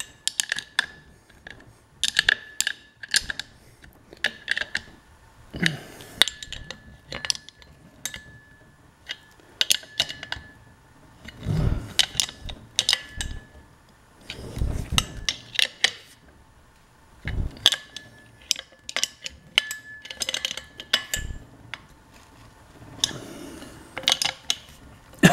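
Combination wrench clicking and clinking against the hex flange bolts of a Mercruiser exhaust Y-pipe as they are tightened in turn, with irregular metallic ticks and a few duller knocks. The bolts are being drawn down onto a spacer joint, compressing its O-ring seal.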